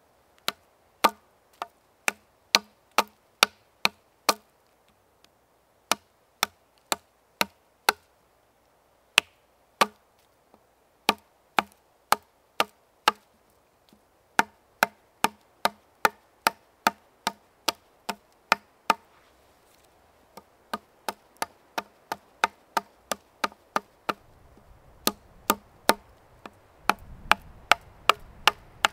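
Repeated sharp blows of a hand tool on wood, about two to three a second, in runs of several with short pauses between. A low rumble comes up under the strikes near the end.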